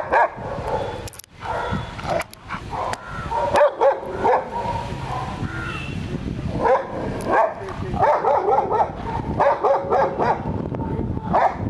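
A dog barking again and again in quick runs of barks.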